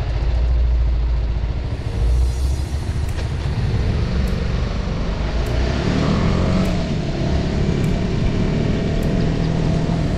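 BMW G 310 R motorcycle's single-cylinder engine running as the bike pulls away and speeds up, its pitch rising about halfway through, over a heavy low rumble.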